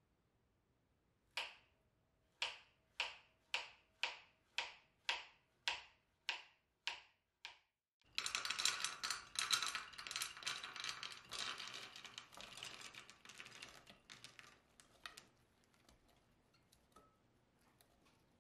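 A knife chopping a peeled banana on a plastic cutting board: eleven crisp chops, about two a second. Then several seconds of dense clattering, as small berries tumble into a stainless steel pot.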